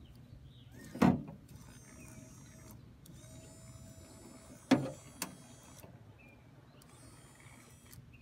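1989 Ford E-350 power window motor, held in the hand and run from the door switch on a bench test, not yet packed with grease: it runs in short spells with a thin high whine. Two sharp knocks stand out, about a second in and a little before the five-second mark.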